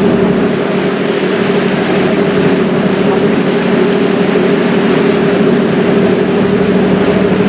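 Steady drone of a river cruise ship's engines heard on deck while under way, a constant low hum over an even hiss of wind and water.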